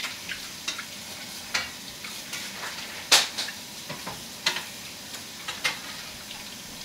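Sausage gravy sizzling in a frying pan as it is stirred, with a steady hiss under scattered sharp clicks of the utensil against the pan; the sharpest click comes about three seconds in.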